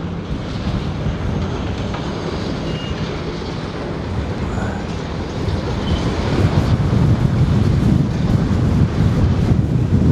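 Low, continuous rumble of heavy engines and passing road traffic, growing louder about six seconds in.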